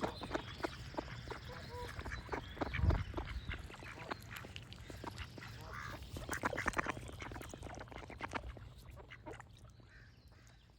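Ducks quacking in rapid runs of short calls, with birds singing and a low rumble underneath; the whole fades out near the end.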